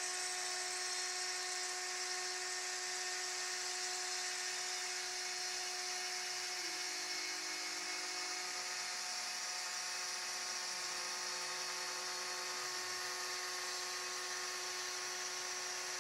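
Proxxon spindle on a homemade CNC gantry router running steadily at high speed, its cutter milling through a wooden sheet, with a constant high-pitched whine. From about halfway through, faint lower tones slide up and down underneath.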